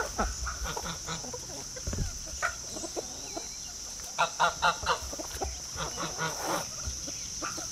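Backyard poultry calling: a quick run of about half a dozen short calls about four seconds in, and a few more near six seconds. Under them is a steady high insect trill, likely crickets.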